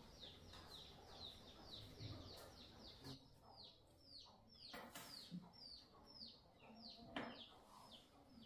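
Faint bird chirping: short high calls repeated evenly, about three a second, each falling in pitch. Two sharp knocks come about five and seven seconds in.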